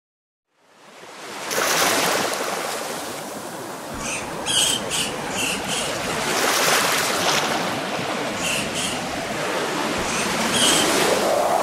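Ocean surf fading in and washing in swells. Runs of short, high-pitched chirps come about four seconds in and again near the end.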